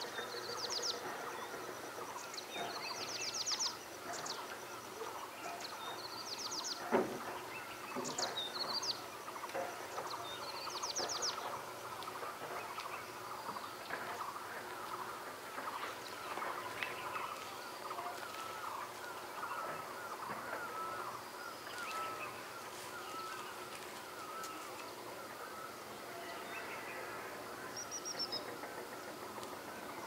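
Small birds chirping and calling all around: a steady chatter of short chirps, with short high-pitched trills every second or two during the first dozen seconds and once more near the end. A single sharp click about seven seconds in.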